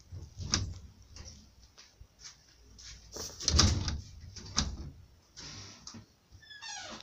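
Irregular knocks and bumps, like objects being handled, the loudest about three and a half seconds in, followed near the end by a short run of quick falling chirps.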